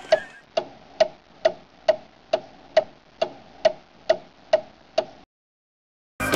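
Steady ticking of a clock, about a dozen even ticks a little over two a second, stopping abruptly about five seconds in. After a moment of dead silence, music starts near the end.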